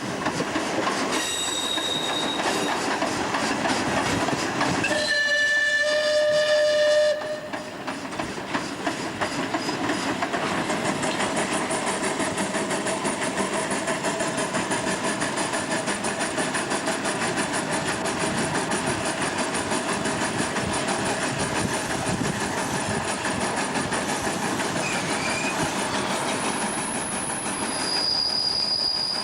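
Train with old FS Centoporte coaches rolling past, wheels clicking steadily over the rail joints. A loud pitched signal blast lasts about two seconds, some five seconds in, and a high wheel squeal comes near the end.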